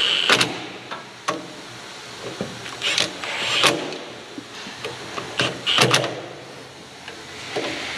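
Cordless impact wrench running in several short bursts, snugging down the bolts of a dozer's filter housing one after another.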